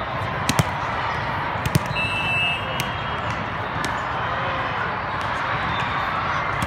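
Indoor volleyball match ambience: a steady din of crowd and play noise, with a few sharp ball smacks in the first two seconds and a short high steady tone, like a whistle or buzzer, about two seconds in.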